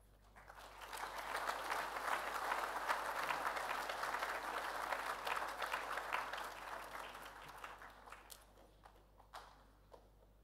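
Audience applauding: many hands clapping, building up over the first second or two, holding steady, then fading away over the last few seconds.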